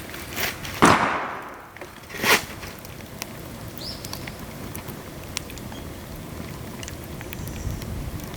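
Dry bamboo burning in a pail-can fire, crackling steadily, with a loud sharp pop about a second in and another about a second and a half later as bamboo sections burst in the heat.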